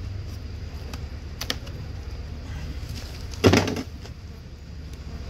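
Wooden hive box being handled during a colony split: a short click about a second and a half in, then a louder knock and scrape lasting about half a second, as the brood is tipped over into the other box.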